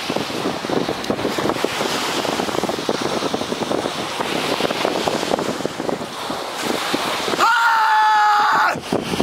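Wind buffeting the microphone over surf, then about seven seconds in a loud karate kiai, one held shout lasting over a second.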